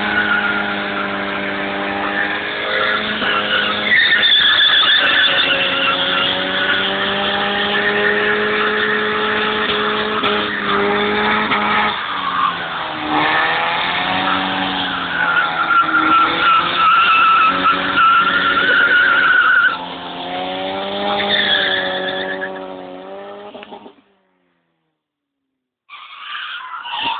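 Ford Sierra doing a burnout: the engine is held at high revs while the rear tyres spin and squeal. Partway through the revs dip and climb again, and near the end the sound cuts off.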